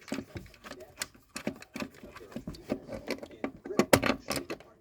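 Irregular clicks and knocks of a wall socket faceplate being handled and pushed into its backing box, with its wires being worked into place; the loudest knocks come a little before the end.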